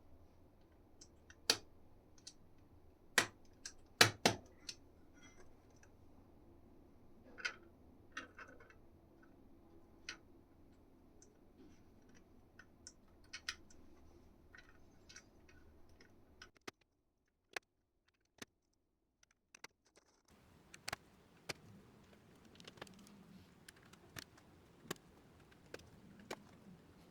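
Irregular small clicks and taps from hands working on a split keyboard's parts, with a few sharper clicks in the first five seconds. The sound drops out to near silence for about four seconds past the middle, then the sparse clicking resumes.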